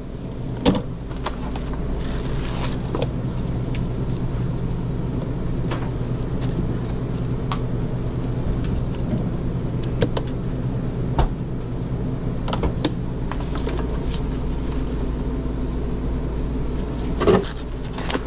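Steady low hum of kitchen machinery in a food trailer, with scattered clicks and clacks of tongs and plastic topping pans as toppings are picked out. One louder clack comes about a second in, and another near the end.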